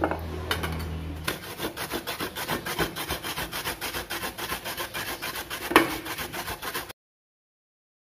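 Peeled ginger root being grated on a flat stainless-steel grater: quick, repeated rasping strokes. A louder knock comes about six seconds in, then the sound cuts off suddenly.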